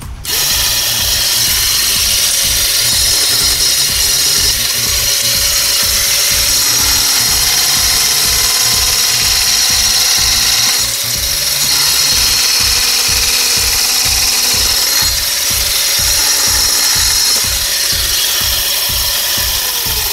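Homemade battery-powered electric chainsaw, a 24-volt motor driving a saw chain, running and cutting into an orange branch, with a steady high whir and the rasp of the chain. The sound shifts about halfway through, and the motor's tone falls as it winds down at the very end. Background music with an even beat plays underneath.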